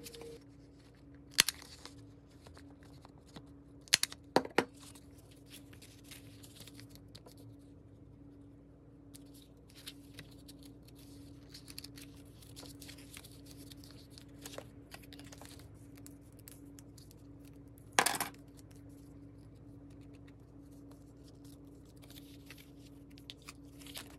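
Paper and card being handled and rustled on a cutting mat, with a handful of sharp clicks, the loudest about three-quarters of the way through. A steady low hum sits underneath.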